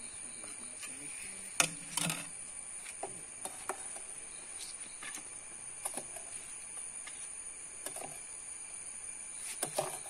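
Sharp clinks of a steel ladle and steel utensils against pots and a steel plate while food is served, the loudest about a second and a half in and a few more near the end. Under them, insects keep up a steady high-pitched drone.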